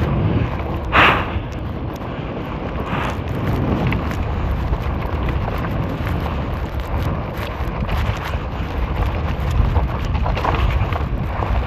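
Wind rushing over the microphone of a fat-tire electric bike being ridden at speed, with a brief louder burst about a second in.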